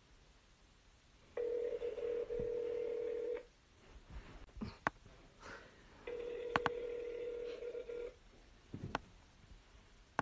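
Phone ringback tone playing through a phone's speaker while a call rings out: two rings of about two seconds each, a few seconds apart. A few light clicks and taps come between and after the rings.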